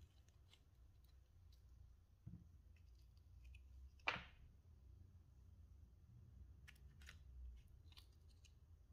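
Near silence: faint room tone with a few soft clicks, a small thud, and one sharper click about four seconds in.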